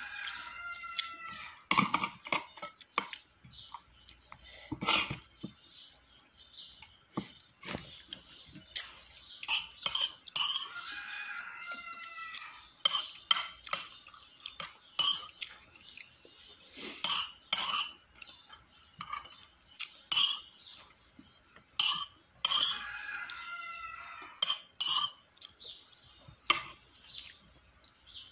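Metal spoon clinking and scraping against plates in short, irregular clicks during a meal. A rooster crows three times in the background, about eleven seconds apart.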